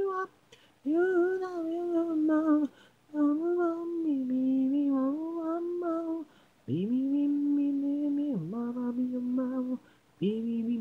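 Isolated a cappella lead vocal singing held notes with no instruments behind it, in several phrases broken by short breath pauses. The phrases from about two-thirds of the way in sit lower in pitch.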